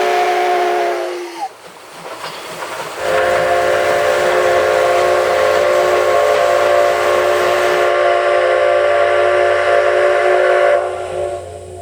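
C57 180 steam locomotive's whistle: a blast ends about a second in with its pitch sagging, then after a short pause a long chord-like blast sounds for about eight seconds over steam hiss and cuts off.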